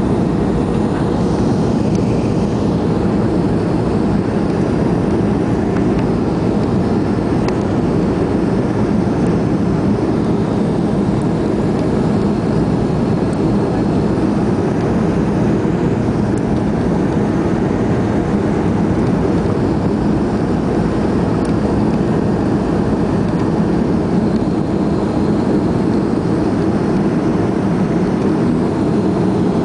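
Steady in-cabin noise of a Boeing 737-300 on final approach: its CFM56 jet engines and the rush of air past the fuselage, heard from a seat over the wing.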